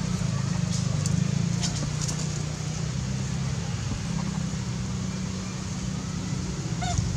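Steady low engine hum with a few faint short chirps and clicks over it in the first couple of seconds.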